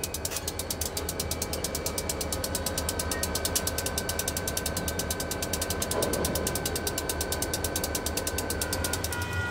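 Wheeling & Lake Erie diesel locomotive running: a steady low engine drone with a fast, even ticking, about eight a second, that stops just before the end.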